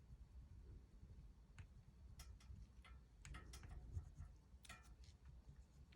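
Near silence with faint, scattered small clicks and a brief soft rubbing about three and a half seconds in: light handling of a pistol during crayon color-filling.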